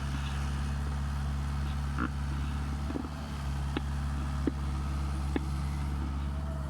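Mini excavator's diesel engine running steadily, with several short sharp knocks about a second apart.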